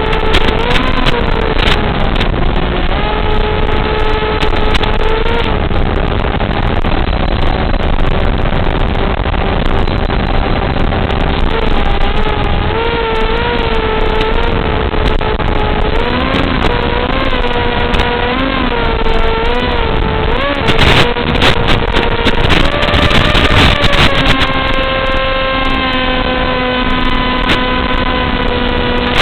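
A small motor running in flight, a steady pitched whine that wavers up and down repeatedly in the middle and shifts in pitch near the end, over a constant rushing noise.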